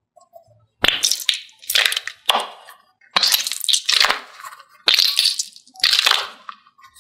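Mesh-covered squishy stress ball squeezed by hand about six times in a row, each squeeze a short, loud, noisy squish.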